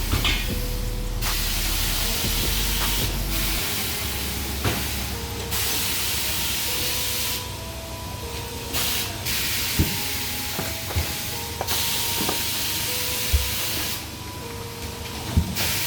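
Loud hissing spray that cuts in and out in stretches of a few seconds, with a few sharp clicks.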